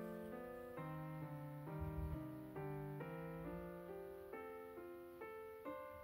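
Background piano music, a steady run of notes changing every half second or so.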